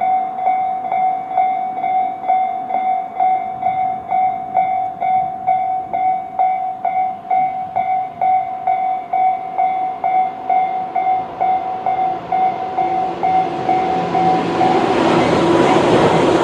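Electronic level-crossing warning bells (Tobu 'sound C', on both sides of the crossing) ringing in a fast steady ding, about two to three strikes a second. From about twelve seconds in, a Tobu 850-series train comes up and passes over the crossing, and its running noise grows until it drowns out the bells near the end.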